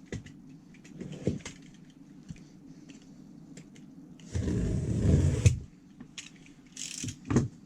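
A cardboard box being opened by hand: scattered clicks and knocks, and about four seconds in a loud scraping rustle of cardboard lasting just over a second.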